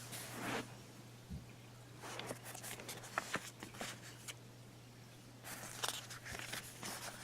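Faint paper rustling and light clicks from handling a CD album's packaging and pulling out and leafing through its booklet.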